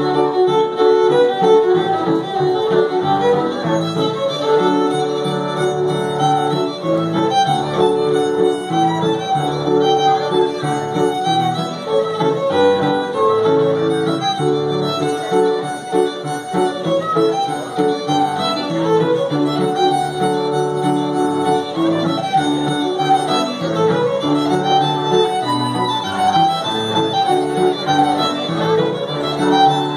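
Solo fiddle playing a tune of many quick notes, with keyboard accompaniment in the lower range beneath it.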